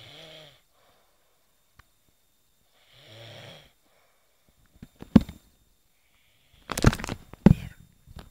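A person snoring: two slow snores about three seconds apart, each under a second long. From about five seconds in come several loud knocks with rustling, louder than the snores.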